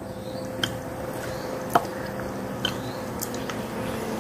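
Half and half being poured into glasses of root beer and rum: a quiet, steady liquid pour with a few faint clicks scattered through it.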